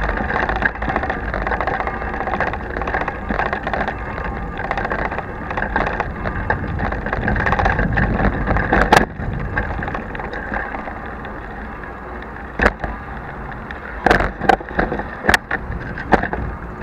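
Bicycle rolling over cobblestones, heard through an action camera clamped to the handlebar without its protective housing: a constant rattle and road vibration. It eases about nine seconds in, then several sharp knocks come near the end as the bike hits bumps.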